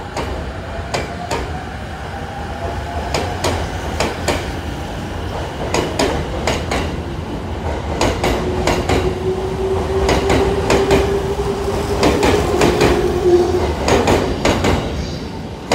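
E231 series electric train accelerating out of the station past the platform. The electric motor whine holds a steady pitch for several seconds in the middle, over a low rumble. The wheel clacks over the rail joints come faster and louder as the train gathers speed.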